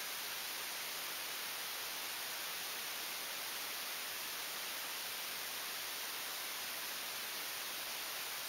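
Steady, even hiss of recording noise, unchanging throughout, with no bird call or other distinct sound.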